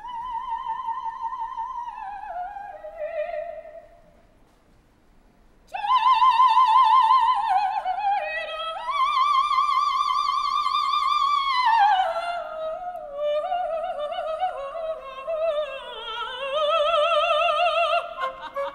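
Operatic soprano singing alone, without orchestra. A phrase steps down in pitch, then comes a pause of about two seconds. Loud, high sustained notes with a wide vibrato follow and slide down into lower phrases.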